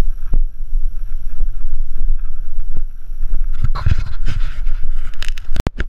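Mountain bike rolling along a dirt singletrack, heard from a camera mounted on the bike: a steady low rumble of the tyres and wind on the microphone, with small clicks and rattles from the bike. About four seconds in, a louder hissing patch, then a few sharp knocks near the end.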